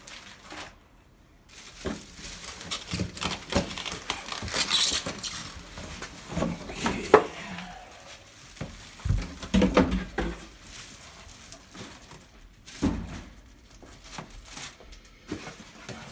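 Unpacking noise: plastic packaging crinkling and rustling, with irregular knocks and clatters of hard plastic parts being handled and set down.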